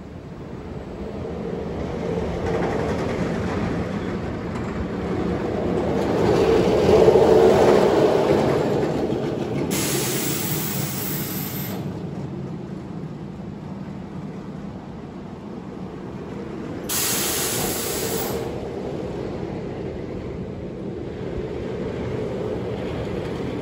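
Steel roller coaster train rumbling along RMC's single-rail track. The rumble swells to loudest about seven seconds in, then fades. Two sharp hisses of air, each about two seconds long, come near the middle and again later.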